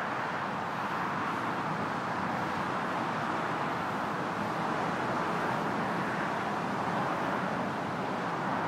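Diesel engines of a mobile crane and a crawler crane running steadily while lifting a widebeam canal boat: a continuous, even drone with no distinct knocks or changes.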